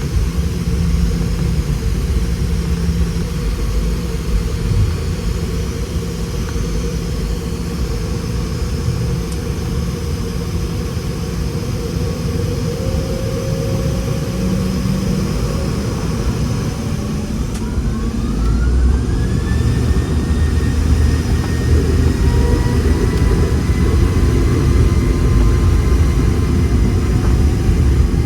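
Boeing 717's Rolls-Royce BR715 jet engines heard inside the cabin: a steady low rumble, with an engine whine that rises in pitch about halfway through and then holds steady while the cabin noise grows a little louder.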